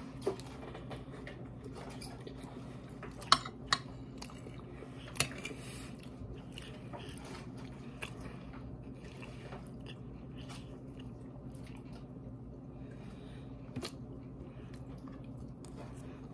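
Someone eating with a fork from a glass plate: a few sharp clinks of the fork on the glass, loudest three times between about three and five seconds in, over quiet chewing and a steady low hum.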